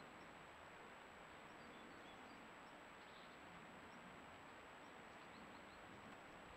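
Near silence: faint steady outdoor hiss with a thin steady high tone and a few faint, short, high bird chirps.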